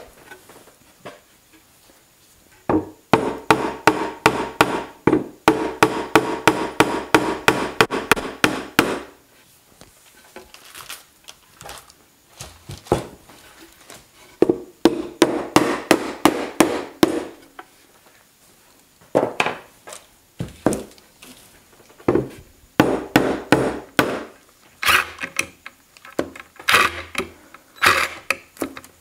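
Mallet striking a plywood panel to seat it on a wooden frame, in runs of quick taps, about five a second, with pauses between the runs.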